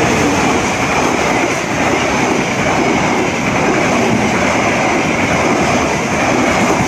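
Train of passenger coaches running past close by: a loud, steady rumble of steel wheels on the rails.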